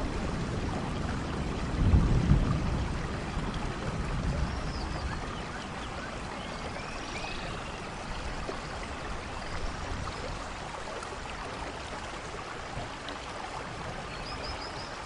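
Steady rain with rushing water, a low rumble of thunder about two seconds in, and a few faint high bird chirps now and then.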